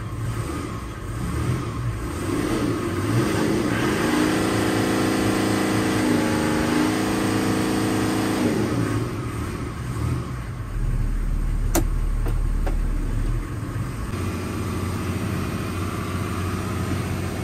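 Sailboat's inboard diesel engine running, brought up in revs about four seconds in and eased back down about nine seconds in, then running on at a lower hum. The engine is running on diesel emulsified with water, which keeps making it stall. A single sharp click comes about twelve seconds in.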